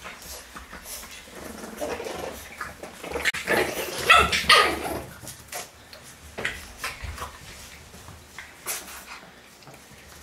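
French Bulldog puppies playing, barking and growling at each other, loudest a few seconds in, then settling to scattered short clicks and quieter sounds.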